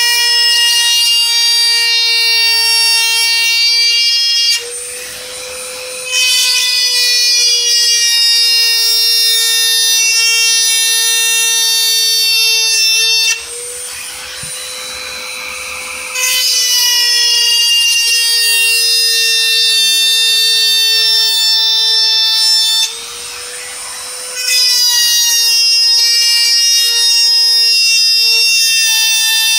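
Dremel rotary tool with a drill bit running at high speed with a steady, high whine as it cuts into the plastic valve cover around an old spark plug tube gasket. Three times it eases off the work for a second or two and the sound drops quieter and thinner before the cut resumes.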